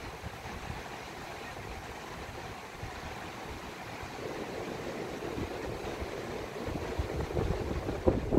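Wind buffeting the microphone over the steady wash of surf, the gusts growing stronger in the second half.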